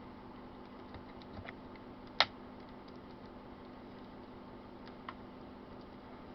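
A few faint, scattered clicks over a steady low hum, with one sharp click about two seconds in.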